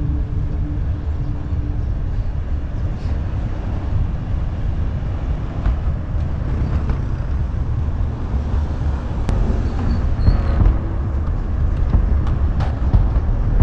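Wind buffeting the microphone of a handlebar-mounted action camera on a moving bicycle, a steady low rumble, with car traffic passing on the road.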